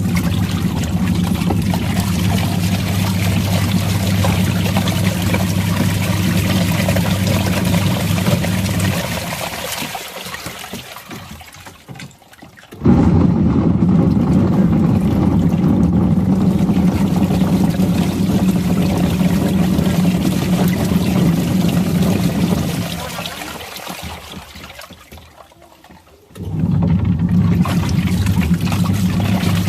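Washing machine churning water, its motor humming steadily under sloshing water. The motor winds down and stops twice, then starts again abruptly, in the run-and-pause rhythm of a wash cycle.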